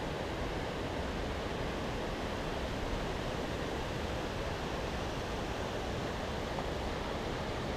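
Steady rushing of water pouring out of a dam spillway into the channel below.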